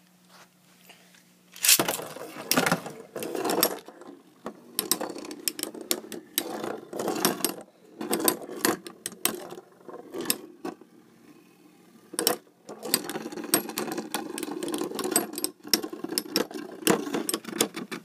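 Two Beyblade spinning tops launched into a plastic stadium about two seconds in, then spinning and clashing: a steady whir broken by many sharp clicks and clacks as the tops hit each other and the stadium walls.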